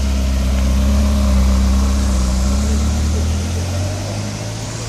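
Mercedes-Benz C63 AMG's 6.2-litre V8 running at low revs with a deep, steady rumble that drops back about three seconds in.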